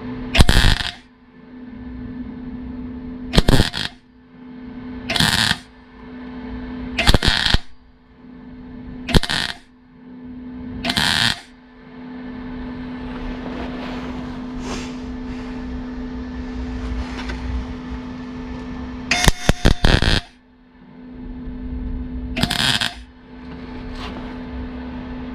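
Welder laying a run of short tack welds on a car body panel, each a loud crackling burst of about half a second, roughly one every two seconds, over the welder's steady hum. A longer, quieter stretch of hiss follows mid-way, then a quick cluster of very short zaps and one last burst.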